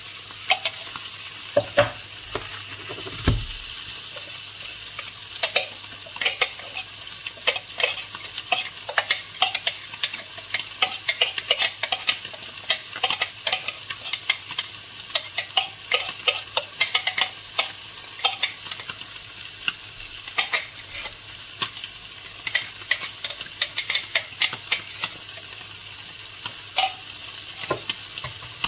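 Fish fillets frying in a nonstick pan: a steady sizzle of hot fat with frequent small crackles and pops. A few knocks sound in the first few seconds, the strongest a dull thump about three seconds in.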